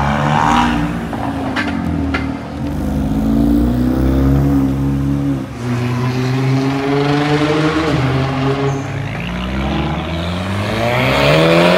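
A car engine accelerating hard, its pitch climbing steadily, dropping about halfway through as it shifts up a gear, then climbing again to a peak at the end. Two short sharp cracks come about one and a half and two seconds in.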